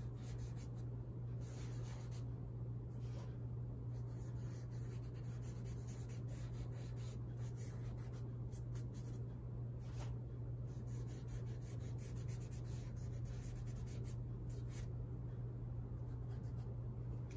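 A paper tissue rubbing soft pastel on drawing paper, blending and wiping it in short irregular scratchy strokes, over a steady low hum.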